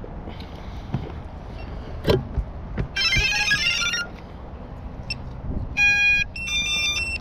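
Electronic beeps and chime-like tones from a drone's controller: a dense chime about three seconds in, then a short beep and a run of stepped tones near the end, over low wind rumble.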